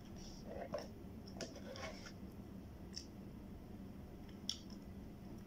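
Eating sounds: a metal spoon scraping and scooping ice cream in a paper cup, with soft mouth smacks. They come as a few scattered short clicks and scrapes, the sharpest just under a second in and about four and a half seconds in.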